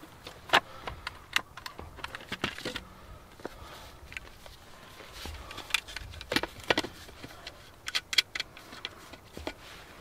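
Outdoor gear being handled: an irregular string of sharp clicks, knocks and light metallic clinks with rustling, loudest about half a second in and again in clusters around six to eight seconds in.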